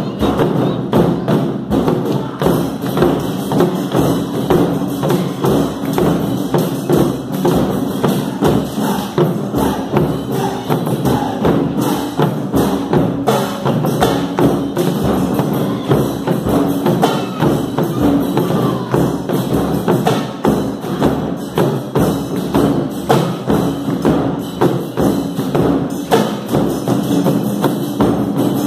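Taiko ensemble playing live: large barrel drums carried on shoulder straps are struck in a fast, dense rhythm, layered with other percussion.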